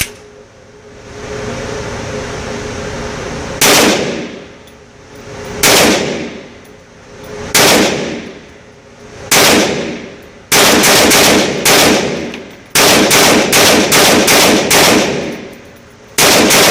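KelTec PMR-30 .22 Magnum pistol firing: four single shots about two seconds apart, then a fast string of about a dozen shots at roughly three a second, and one more shot near the end, each with a short echo.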